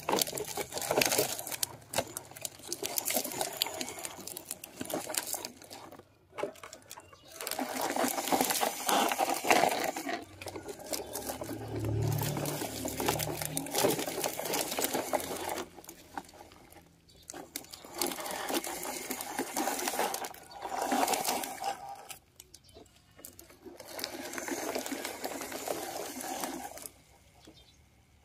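Plastic toy trucks pushed by hand, their wheels rolling and rattling over a plastic sheet and gravel in stretches with short pauses between.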